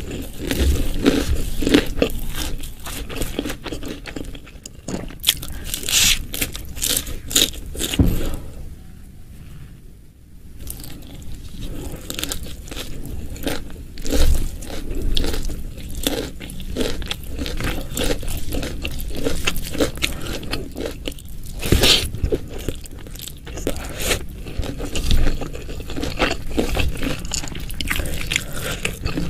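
Close-miked eating: crunchy bites and chewing with scraping sounds, a dense run of sharp crackles that eases into a quieter lull about nine seconds in before picking up again.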